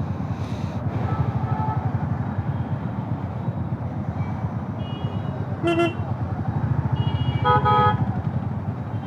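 Motorcycle engine running under way with a fast, steady low pulse, while vehicle horns honk: a short toot about five and a half seconds in and a longer blast near eight seconds.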